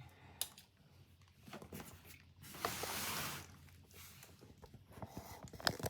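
A fabric and plastic tool bag being handled: scattered light taps and clicks, with a longer rustling scrape about two and a half seconds in that lasts about a second.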